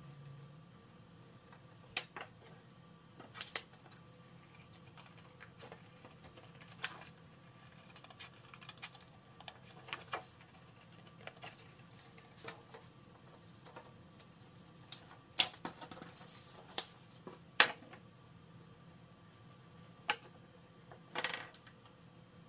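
Scissors cutting scrapbook paper: irregular sharp snips and clicks with paper rustling between them, the loudest cluster a little past the middle and another near the end.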